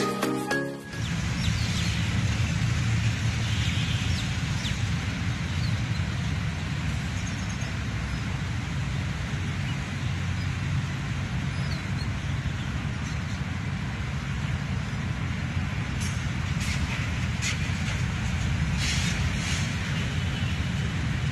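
Diesel-electric locomotive approaching from a distance with a steady low engine rumble, heard amid outdoor noise. A few short sharp sounds come near the end.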